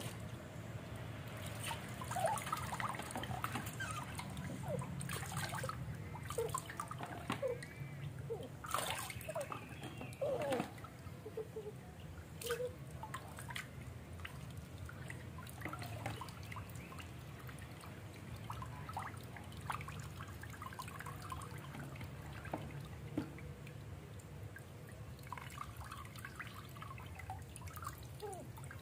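Water poured from a plastic cup over a puppy, running off its coat and dripping and trickling back into a metal basin of water, with many small plinking drips, busiest in the first half.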